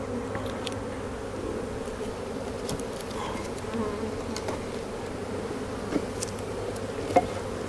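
Honey bees buzzing steadily around an open hive as its frames are worked, a dense, even drone. Two short knocks sound near the end.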